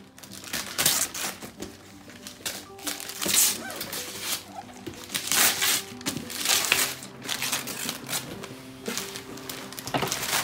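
Christmas wrapping paper being ripped and crumpled off a cardboard box in a series of quick tears, over steady background music.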